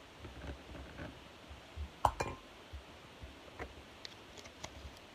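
Scattered light knocks and clinks of small containers and utensils being handled, with a sharper clink that rings briefly about two seconds in.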